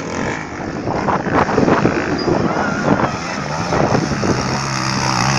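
Dirt bike engine running on a trail ride, with wind noise on the microphone; a steady engine note comes through clearly from about halfway.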